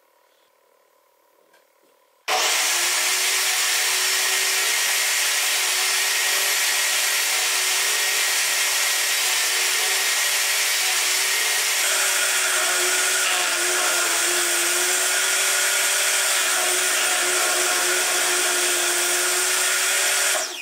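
Benchtop table saw running and cutting wood: a loud, steady whine with the hiss of the blade. Its pitch dips a little partway through as the blade takes the cut. It starts abruptly about two seconds in and cuts off abruptly at the end.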